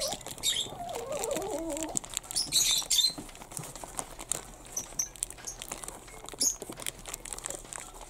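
Small clear plastic bag crinkling and rustling in the fingers as it is picked and pulled open, with many small clicks and several short, higher rustles.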